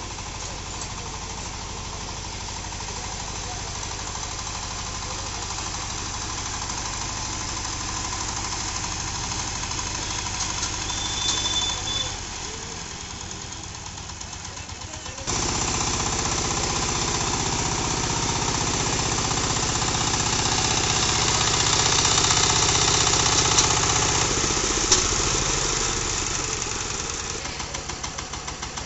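Single-cylinder diesel power tiller engine running with a steady knocking beat, louder from about halfway.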